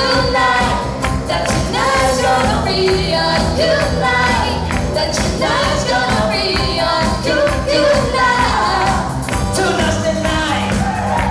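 A live band performing a pop song: several voices singing into microphones over electric guitar, bass and drums with a steady beat.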